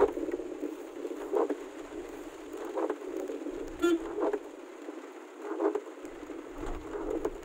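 Heavy rain and running noise heard from inside a slow-moving vehicle, with the windshield wipers sweeping about every one and a half seconds. A brief buzz comes about four seconds in.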